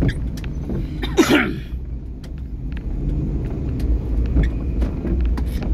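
Steady low rumble of a car, heard from inside its cabin, with scattered light clicks and a short, loud burst of noise about a second in.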